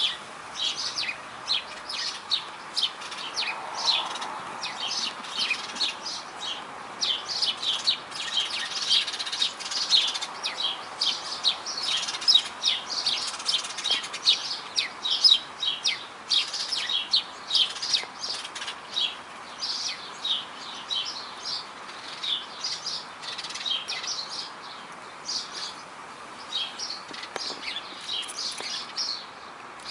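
Many short, high chirps, several a second and irregular, over a faint steady background hiss.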